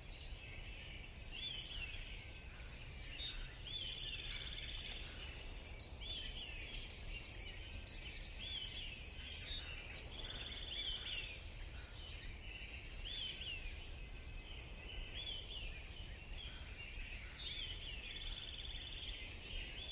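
Several backyard songbirds chirping. One repeats a short rising-and-falling call every second or two, and a busier chorus of higher, quicker chirps joins from about three seconds in to about eleven, and again near the end. A steady low rumble runs underneath.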